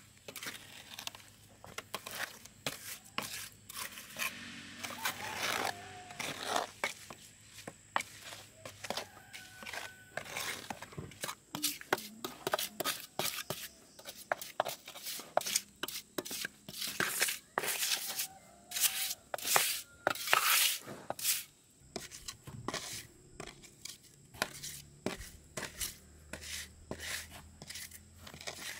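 Irregular sharp knocks, clicks and scraping from hands-on work with tools or materials, busiest and loudest a little past the middle.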